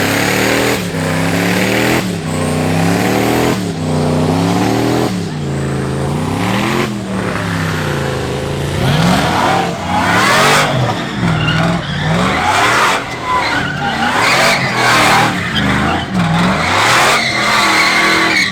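Truck engine revving hard over and over, its pitch swinging up and down about every second and a half. From about nine seconds in, tyres squeal and scrub in a burnout while the engine keeps revving.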